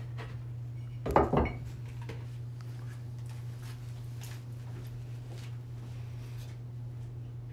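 Brief clatter of hard objects being handled on a workbench about a second in, then a few faint knocks, over a steady low hum.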